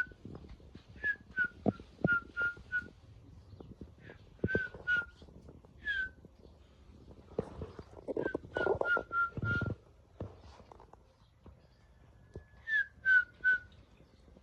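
A person whistling short repeated notes in quick runs of two to five, with a few sharp clicks or knocks between the runs and a brief rougher noise partway through.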